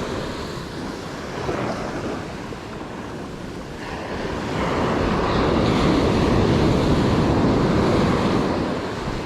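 Ocean surf washing onto the beach, a wave building about four and a half seconds in, running loud for several seconds, then easing.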